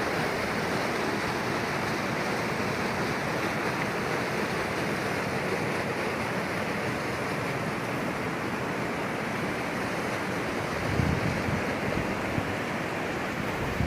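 Waterfall rushing with a steady, even roar of falling water. A brief low rumble of wind on the microphone comes about eleven seconds in.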